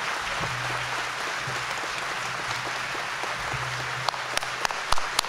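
A large audience applauding steadily. About four seconds in, sharp hand claps close to the microphone join in, a few per second.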